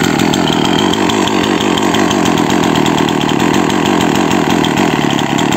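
Partner two-stroke chainsaw idling steadily on its own, with the throttle untouched. The saw is running after a fuel-leak repair.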